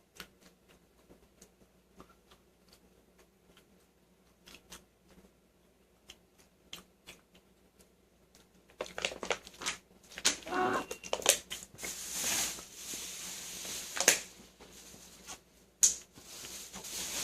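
A person eating canned sardines close to the microphone. Faint scattered clicks at first, then from about halfway a run of crackling, crinkling and handling noises with a short wavering groan.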